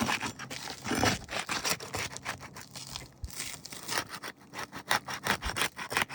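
Pry bar scraping and rasping under asphalt shingles in quick, irregular strokes, breaking the shingle's bottom adhesive seal strip loose.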